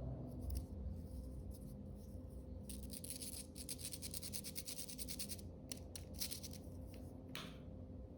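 Wood fire crackling in a fireplace: a quick run of small snaps and pops, densest for a couple of seconds in the middle, over a low steady hum.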